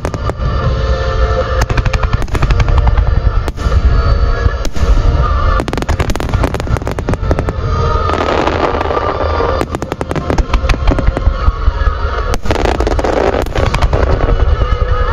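Fireworks finale barrage: shells bursting in rapid succession with sharp reports and a continuous deep rumble. About eight seconds in, and again near the end, comes a dense stretch of crackling. Music plays underneath.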